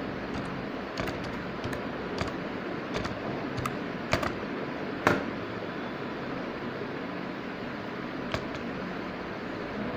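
Computer keyboard keystrokes typed at an irregular pace, with one louder key press about five seconds in, over a steady background hiss.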